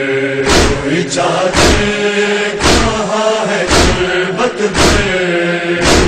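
A group of men chanting a Shia noha in unison, their voices holding long notes. Sharp hand-on-chest beats of matam keep time about once a second.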